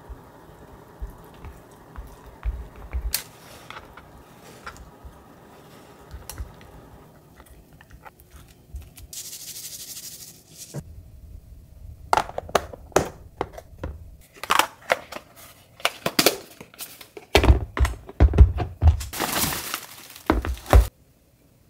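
Kitchen handling sounds while packing a plastic lunchbox. First come soft scrapes and taps of a ladle spooning fried rice, then a shaker rattle of sesame seeds about ten seconds in. Near the end there is a busy run of clicks and knocks from plastic containers and a paper bag rustling, which is the loudest part.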